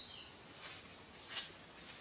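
Dry leaf litter crackling under bare feet, two short crunches about two-thirds of a second apart, the second louder. A brief high bird chirp at the very start.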